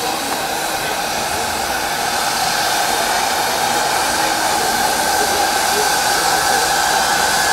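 Steady loud hiss of steam escaping from the top of a small steam tank locomotive's boiler, growing a little louder.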